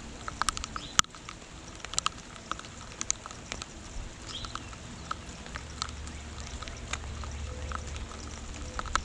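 Rain falling, with big drops landing close by as irregular sharp ticks and taps over a steady hiss; the loudest tick comes about a second in. A faint short bird chirp comes about four seconds in.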